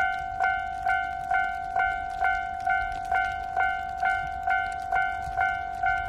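Japanese railway crossing warning bell ringing in a steady, even rhythm of about two strikes a second, each strike a short ringing chime. It is sounding while the barriers are down for an approaching train.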